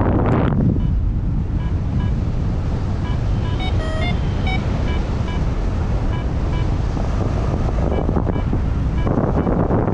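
Wind buffeting a camera microphone in paraglider flight: a steady low rumble, with faint short beeps repeating about twice a second through the first half. About nine seconds in, the wind noise grows louder and hissier.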